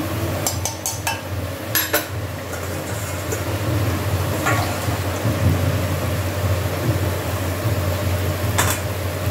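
Steel kitchenware clinking as boiled chickpeas are drained: a ladle and a pressure cooker knock against a steel strainer and bowl in several sharp clinks, over a steady low hum.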